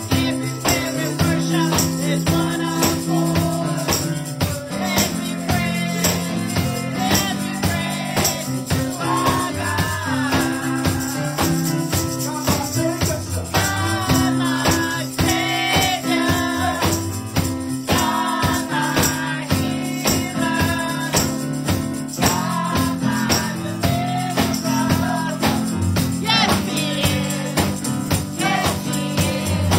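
Live gospel music: an electronic keyboard playing held chords over drums and a quick, steady tambourine-like jingle, with voices singing the melody.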